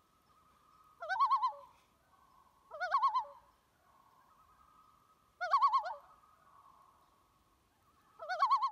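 Bird-like call, a quick warbling trill, repeated four times at uneven intervals over a faint wavering tone that carries on between the calls.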